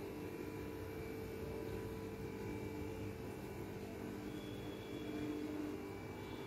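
A steady hum with a few faint steady tones above it, unchanging throughout.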